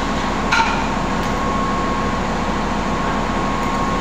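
Steady drone of running industrial machinery, with a faint steady whine and a low hum, and one short ringing metallic clank about half a second in.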